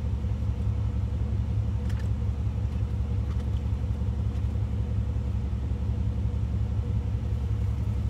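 OBS Chevy pickup's engine running steadily, a low drone heard from inside the cab.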